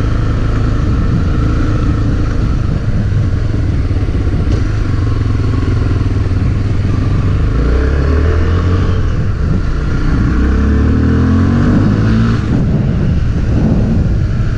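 Honda CB300's single-cylinder engine running under a rider on a test ride, with wind and road noise; the engine note changes pitch in the second half as the throttle and gears change. This is the bike after its service, ridden without front-end knocking.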